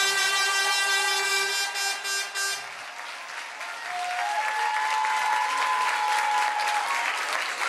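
The backing music ends on one long held note that cuts off about two and a half seconds in, and the audience breaks into applause, with one long drawn-out cheer rising above it.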